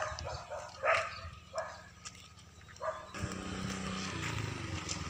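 A dog barks several times, short sharp barks, over the steady running of a vehicle engine. About three seconds in, the engine gets louder and takes over.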